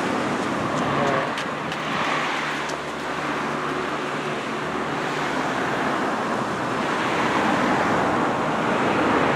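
Steady rushing noise of small surf, wind and passing road traffic, swelling and easing as cars go by, with a faint low engine hum in the first few seconds.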